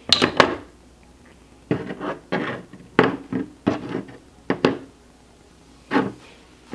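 3D-printed plastic sphericon tipping and rolling on a hard surface, knocking and clattering a dozen or so times at uneven intervals. It goes in fits and starts, with a pause of about a second in the middle, as it catches on the small bumps of a flawed print.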